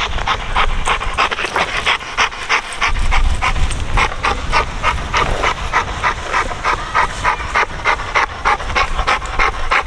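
A young dog panting hard and fast, about three to four breaths a second, from the exertion of gripping and pulling on a bite pillow.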